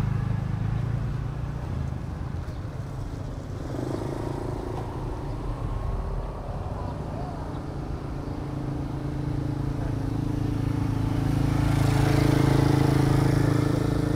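Motorcycle engines running on a street. A steady engine hum grows louder toward the end as a motorcycle passes close.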